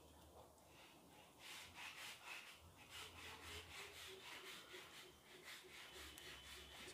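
Near silence, with faint repeated rubbing and rustling that starts about a second and a half in and comes a few strokes a second.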